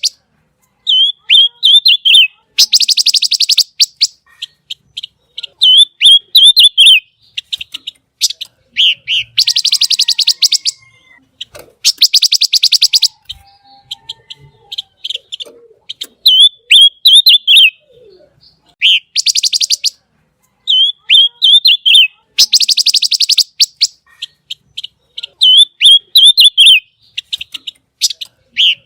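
A songbird known to Indonesian bird keepers as pancawarna singing in full voice: a short warbling phrase followed by a loud, very fast, sharp trill lasting about a second and a half, repeated about every three seconds.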